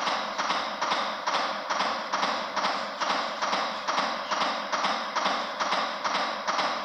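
Chest compressions on a CPR training manikin, a steady tap-and-click about twice a second.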